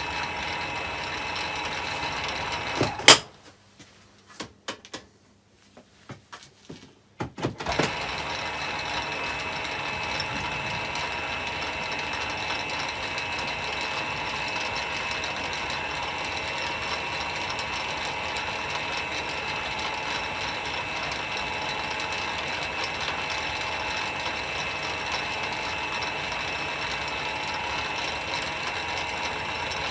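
Myford ML7 lathe running at its lowest back-gear speed with a steady whine of gears and belts. About three seconds in it stops with a loud clack, a few small clicks follow, and after about four seconds it starts again and runs steadily on, with the leadscrew power feed engaged.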